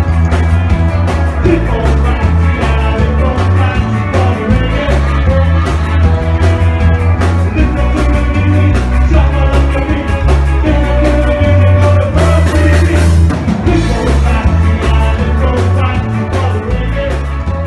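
A live ska band playing loudly, with a heavy bass line under a steady drum beat.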